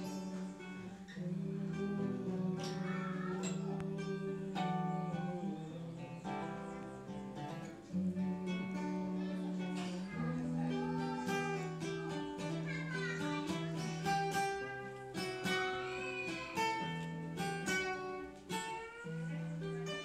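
Two acoustic guitars, one of them a nylon-string classical guitar, playing a song together with steady chords and melody notes and no pause.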